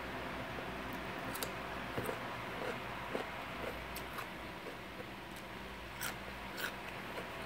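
Cucumber slice being bitten and chewed: a scattered series of short, crisp crunches at irregular intervals over a steady background hiss.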